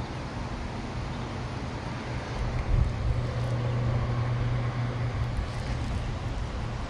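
Boat motor running steadily at low speed, a low hum that swells a little partway through, with wind on the microphone.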